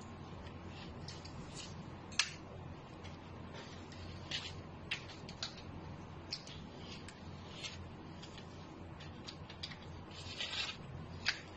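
Faint, scattered clicks and light rattles of a loose saw chain and metal guide bar being handled and fitted onto a mini electric pruning saw's plastic body, with a few sharper clicks and a short cluster near the end.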